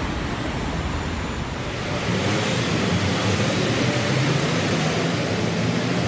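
Steady noise of busy street traffic, with a low engine hum joining about two seconds in.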